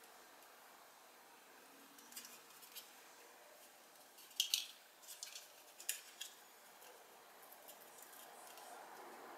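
Faint, scattered clicks and light taps from handling a small plastic power bank with a metal key ring on its lanyard; the loudest short cluster of clicks comes about four and a half seconds in.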